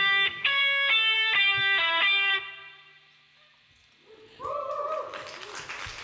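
Electric guitar playing a short closing phrase of single picked notes that ring out and fade as the song ends. A second later a shout goes up and clapping begins.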